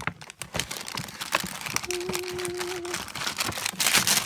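A bag of candy packets crinkling and rustling as it is rummaged through. A brief steady tone sounds for about a second near the middle.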